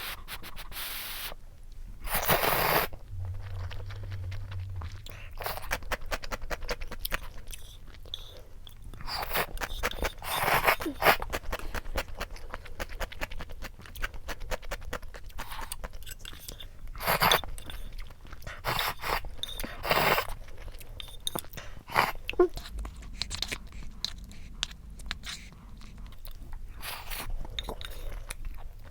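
Close-miked eating of a chicken mayo rice bowl and cup ramyeon: chewing, with many small clicks and scrapes and several louder noisy bursts.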